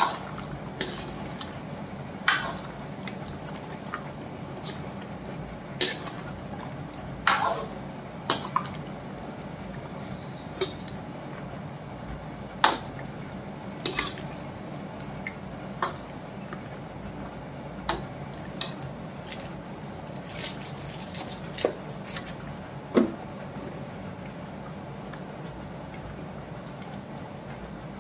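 Steel ladle clinking and scraping against a metal karahi as a thick mutton curry is stirred: irregular sharp knocks a second or two apart, stopping some five seconds before the end, over a steady low hum.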